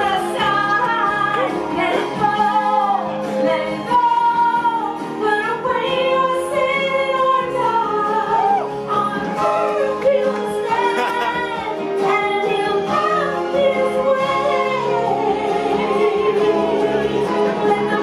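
A song playing: a solo singing voice over an instrumental backing, steady and loud throughout.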